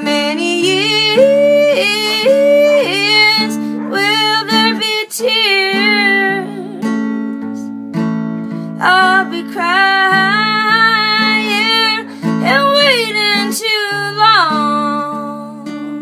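Acoustic guitar played steadily with chord changes about every second, under a wordless female vocal melody with no lyrics.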